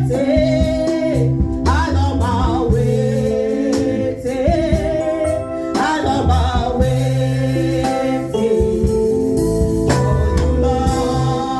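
Gospel song: a woman singing with a wavering vibrato over an instrumental backing with sustained chords and bass notes.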